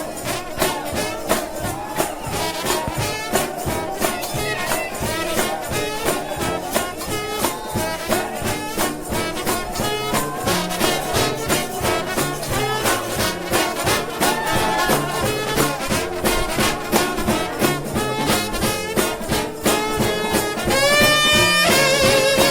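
A United House of Prayer trombone shout band playing an up-tempo gospel shout, the horns over a fast, steady percussion beat. Near the end the band gets louder and holds a high, wavering chord.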